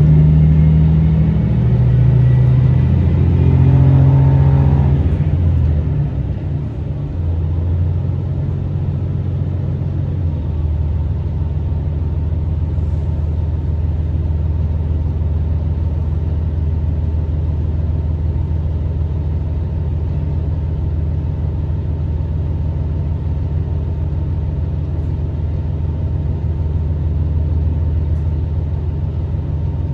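Underfloor diesel engine of a Tosa Kuroshio Railway 9640-series railcar heard from inside the passenger cabin, over the rumble of the running gear. The engine pitch shifts under power for the first few seconds, then the sound drops about six seconds in and settles into a steady low drone.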